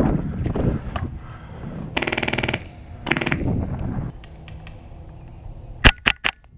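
Airsoft gun firing: a rapid burst about two seconds in, with scattered clicks and rustling around it. Near the end come three loud, sharp cracks in quick succession.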